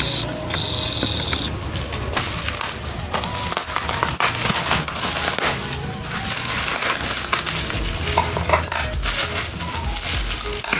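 Plastic parcel wrapping and packing tape crinkling and crackling in an irregular run as hands handle the parcel, with scissors cutting into the plastic near the end.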